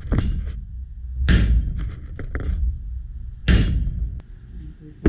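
Hammer blows on a block held on the end of a ship's fire pump shaft during reassembly: three heavy strikes about two seconds apart, with lighter knocks between, over the steady low rumble of engine-room machinery.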